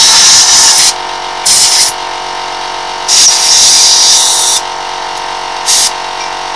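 Handheld rotary tool grinding against a brake caliper to clean off rust, in four bursts of harsh, high-pitched grinding, the longest about a second and a half.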